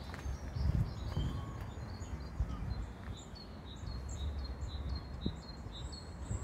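Small songbirds singing: scattered high chirps, then a fast run of short, repeated notes in the second half, over a steady low background rumble.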